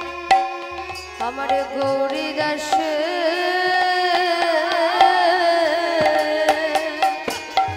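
Bengali kirtan music. A singer's drawn-out, wavering vocal line enters about a second in over a held drone. Khol drum and kartal hand cymbals keep the beat, and the deep khol strokes return near the end.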